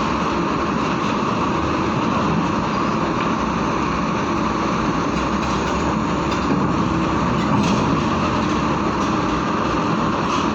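Heavy tronton trucks' diesel engines running steadily as the trucks drive off a ferry, with a few faint knocks.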